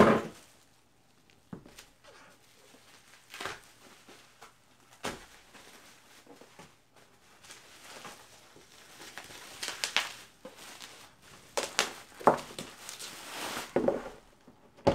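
Plastic bubble wrap rustling and crinkling as it is unwrapped from a box, sparse at first and busier over the last few seconds. A thump right at the start.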